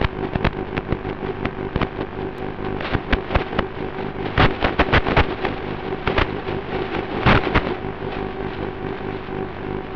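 Small brushless motors of an FPV racing quad, Xnova 2205 2600KV with tri-blade propellers, running low as the quad lies in dry grass after a crash, with irregular sharp clicks and knocks as the propellers strike the grass; the knocks come thickest about four to five seconds in and again around seven seconds.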